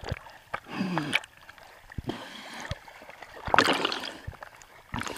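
Sea water splashing and sloshing around a camera riding at the surface, half in the water, with a few sharp knocks on the housing and a louder rush of water a little past halfway.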